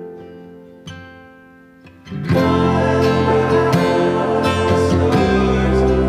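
Background music: a few soft plucked guitar notes die away, then about two seconds in a louder, fuller arrangement comes in.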